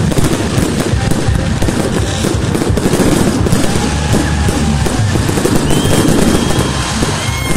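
Fireworks display: continuous rapid bangs and crackling from aerial shells, with music playing underneath.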